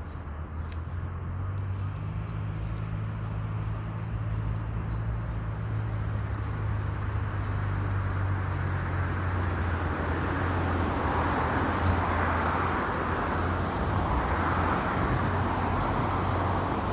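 Roadside traffic: a steady low engine hum, with a broad swell of tyre and engine noise as a vehicle passes in the second half, and faint high chirps, likely small birds.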